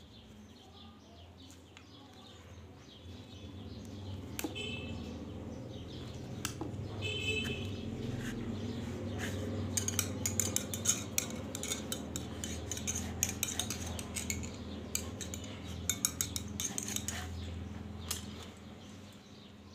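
Steel compression cylinder of a Chinese B2 spring air rifle being cleaned out with a thin rod: scraping and rubbing inside the tube, with quick metallic clicks and clinks that come thickest in the second half.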